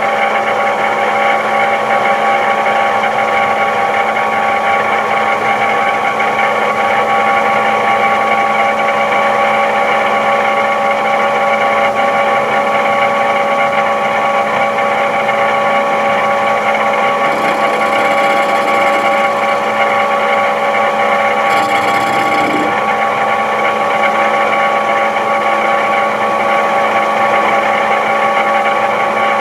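CNC lathe spindle turning a steel round bar at about 1000 RPM, a steady machine whine of several constant tones. A little past halfway and again about three-quarters in, a brief hiss joins it as the hand-fed tool cuts the bar's end during a test cut.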